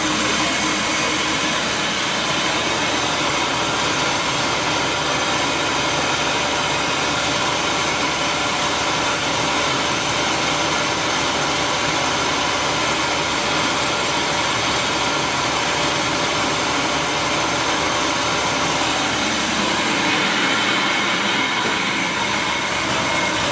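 Maize grits and flour milling machinery running steadily: a continuous mechanical noise with several constant whining tones through it.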